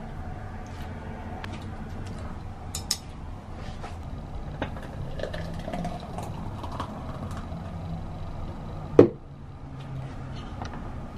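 Clinks and knocks of dishes and a glass being handled on a kitchen counter, over a steady low hum; the loudest knock comes about nine seconds in.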